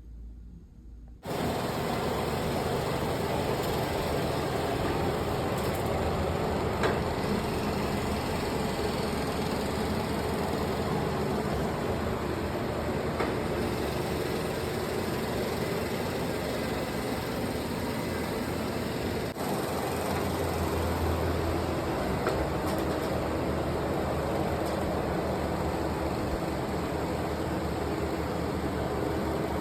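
Shark AI Ultra robot vacuum running: a steady motor-and-airflow noise that starts abruptly about a second in and holds at an even level.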